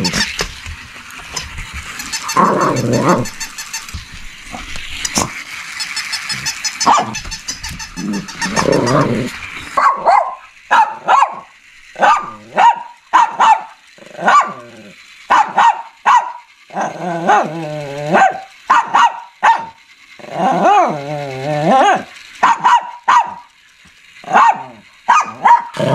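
Shih Tzu growling and barking. Low growls come first, then from about ten seconds in a long run of short, sharp yaps, with a few longer wavering growl-barks among them.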